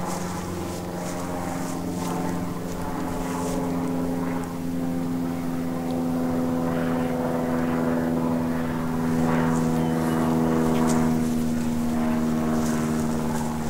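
An aeroplane flying over: a steady engine drone made of several low hums, getting a little louder in the second half.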